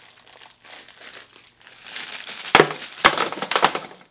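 A plastic snack bag being crinkled and pulled open: soft crackling at first, then three loud tearing crinkles in quick succession in the second half.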